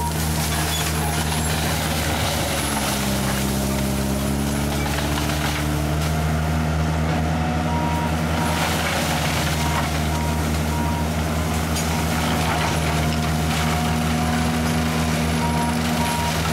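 Tracked forestry mulcher's engine running hard while its front head chews through brush; the engine note sags a few seconds in as it takes the load, then recovers. From about halfway through, a short beep sounds about once a second over the machine.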